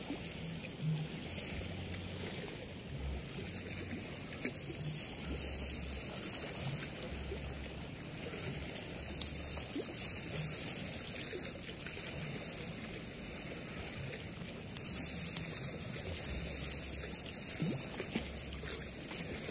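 Steady rush of flowing water from a river weir, with faint rustling and small ticks from a nylon cast net being picked over by hand.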